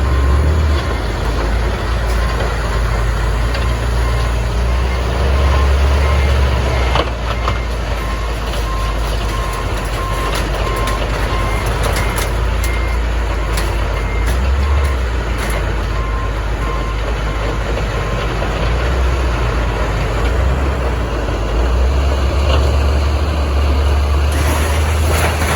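A heavy diesel vehicle's engine running with a steady low rumble. For about ten seconds in the middle a backup alarm beeps at an even pace, and a few clanks come through.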